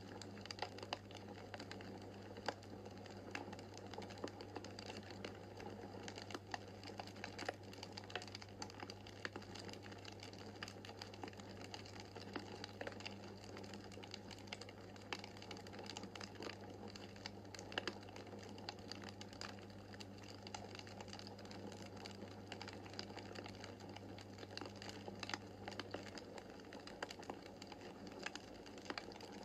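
Wood fire crackling in a fireplace: irregular sharp pops and snaps over a soft steady hiss, with a faint low hum underneath.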